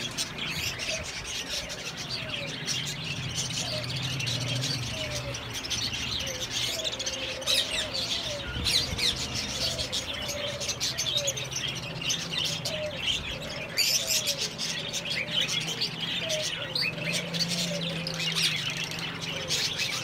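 A crowded room of caged pet birds chirping all at once: lovebirds, budgerigars, cockatiels and zebra finches, a dense, unbroken chatter of high tweets with a few sharper calls standing out. A lower call with a rising and falling pitch repeats underneath, over a low steady hum.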